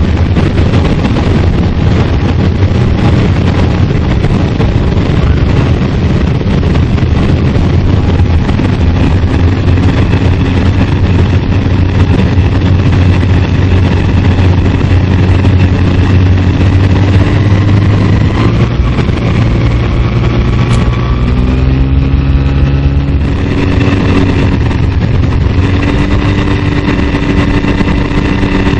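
Rans Coyote ultralight's engine and propeller running at low power during the approach and landing, heard from the cockpit with a steady rush. The engine note creeps up slightly, wavers about two-thirds of the way through, then settles a little quieter as the aircraft rolls along the runway.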